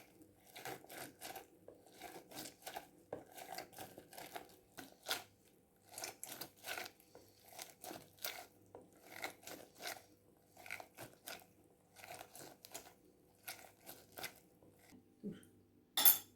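Rhythmic crunching, scraping strokes of food being cut or crushed by hand, about two or three a second, with a sharper clatter of a utensil near the end.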